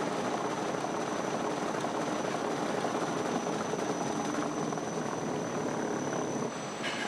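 Steady rumbling whir of a car's wheels spinning on the rollers of a roller test stand, with a thin steady high whine over it.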